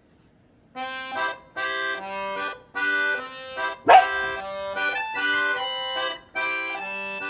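Accordion-like background music plays in short phrases with brief gaps. A single loud dog bark comes about four seconds in.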